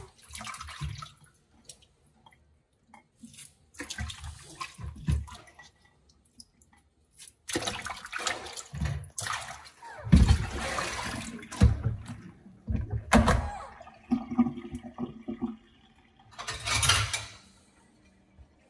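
Water splashing on and off in a stainless-steel kitchen sink as fruit and a plate are washed, in several separate spells with short knocks from handling between them.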